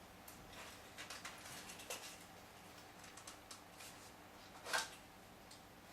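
Faint clicks and light rattling of hard ABS plastic parts being handled as an airsoft spring rifle's back stock is fitted to the body, with one sharper click about three-quarters of the way through.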